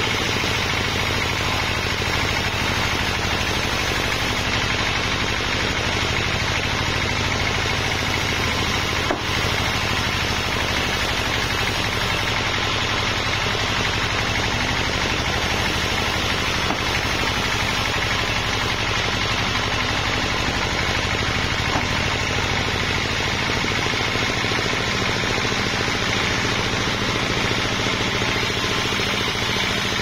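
Homemade band sawmill running, its vertical blade sawing steadily through a large wadang log. A single brief knock comes about nine seconds in.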